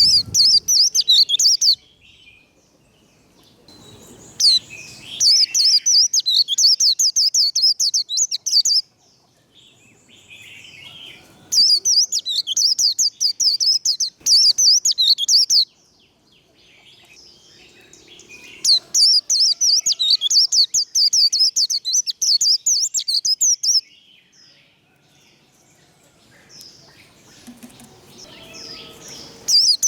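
White-eye (vành khuyên) singing its fast 'líu' song: bouts of very rapid, high-pitched twittering a few seconds long, about five of them with short quieter pauses between.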